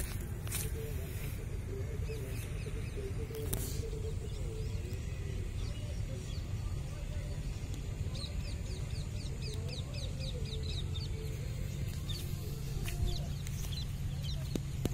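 Outdoor field ambience: a steady low rumble with birds calling, including a quick run of short, falling chirps in the middle.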